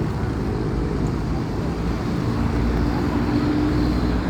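An engine running steadily: a low drone with a humming tone that drifts slightly in pitch.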